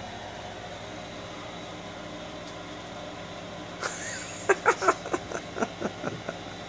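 Steady hum of room noise, then a little under four seconds in, a run of short laughs, about four a second.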